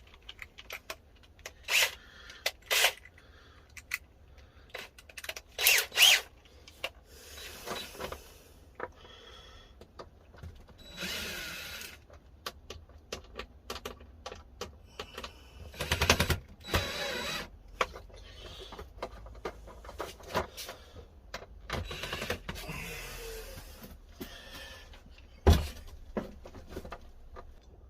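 Handling an LED batten light fitting while taking it apart: scattered clicks and knocks of plastic and metal parts, with a few short stretches of rustling or scraping. The sharpest knock comes near the end.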